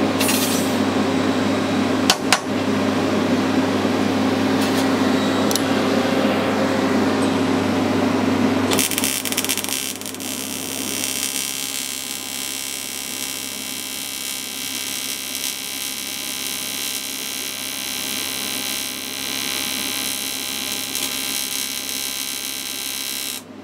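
Electric welding set humming steadily, with a couple of sharp clicks about two seconds in. About nine seconds in, a steady hiss with a thin whine takes over, then cuts off abruptly near the end.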